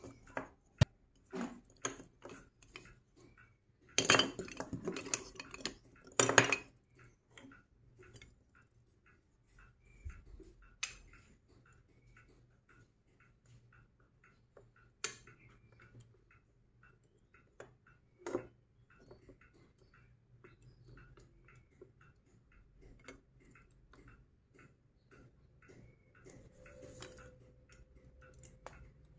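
Plastic magnetic sticks and balls clicking and clacking together as pieces are handled and snapped onto a toy structure, with a longer clatter about four to six and a half seconds in and single sharp snaps later.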